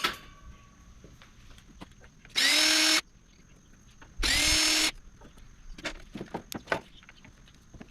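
Power drill run in two short bursts of about half a second each, the motor whining up to speed and holding, as screws are driven out of sheet metal. Small metallic clicks and clinks follow.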